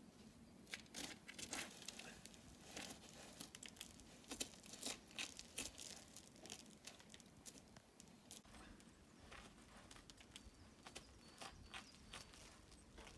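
Near silence with faint, scattered crackles and rustles, busier in the first half and thinning out later: small movements close to the microphone.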